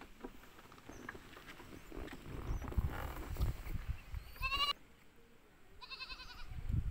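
Two short, quavering bleats from a goat: a brief one about four and a half seconds in and a slightly longer one about six seconds in, over a low rumble.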